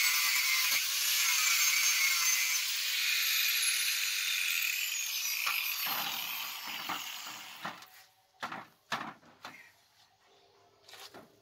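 Angle grinder grinding a steel knife blade: a loud, dense, high-pitched grinding noise that is switched off a few seconds in and winds down with a falling whine. Near the end, a few short knocks and rubs as the blade is handled and wiped.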